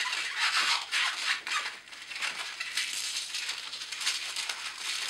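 Latex modelling balloon rubbing and squeaking under the fingers as it is squeezed and twisted into a pinch twist, a dense run of short scratchy strokes.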